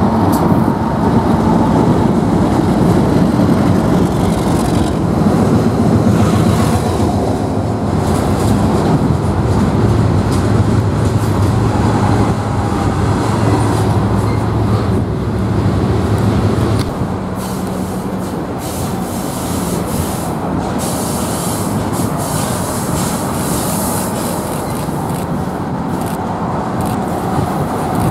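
BNSF diesel freight locomotives passing close below, their engines humming steadily, then freight cars rolling by with steady wheel-on-rail rumble after the engine hum fades about two-thirds of the way through.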